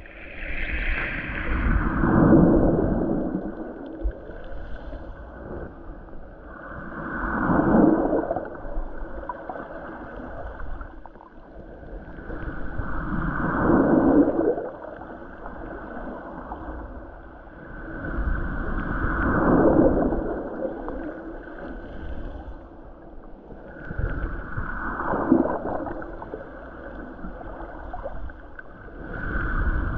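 Muffled surge of water heard from underwater, swelling and fading about every six seconds, each swell sliding downward in pitch.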